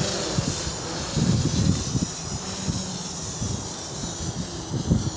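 GAUI 330X-S quadcopter's electric rotors whining as it flies off and climbs, the high whine slowly shifting in pitch. Uneven low gusts of wind buffet the microphone.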